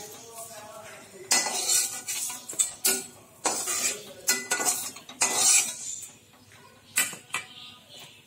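Steel spatula scraping and clinking against a pan and a steel plate as fried red chillies, garlic and coriander for a chutney are scooped out, a quick run of strokes and then a single clink near the end.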